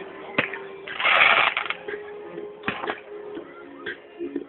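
Music playing at a fireworks display, mixed with crowd noise, with a few sharp firework pops and a louder noisy crackle about a second in.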